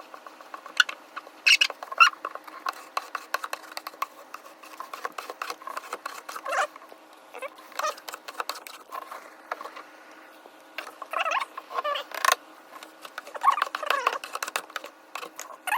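Plastic squeegee scraping and squeaking across a wet vinyl decal in short, irregular strokes, pushing the water out from under it.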